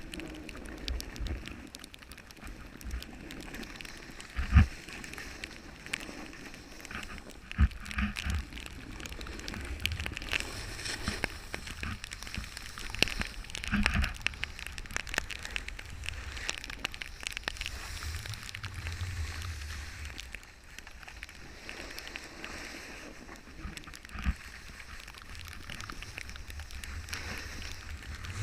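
Snowboard sliding and scraping over snow, with wind buffeting the camera microphone in a low rumble. Several sharp knocks come from bumps in the run, the loudest about four and a half seconds in.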